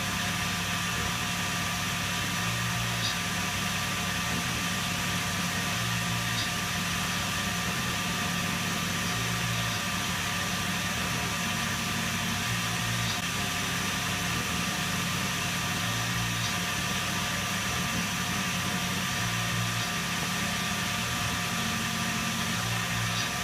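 Tormach PCNC770 CNC milling machine running while cutting 6061 aluminum. The spindle gives a steady whine over a low hum. The hum swells briefly about every three seconds, each time with a faint tick.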